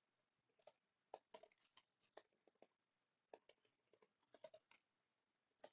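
Faint, irregular keystrokes on a computer keyboard: scattered single clicks and quick runs of clicks as code is typed.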